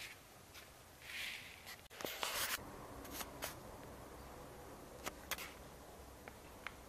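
Rustling and clicking handling noise from a phone camera being moved, loudest about two seconds in, with a few sharp clicks later, over a faint steady low hum.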